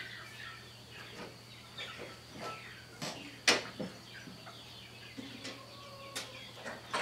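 Chickens clucking, with a few knocks and a sharp clunk about halfway through.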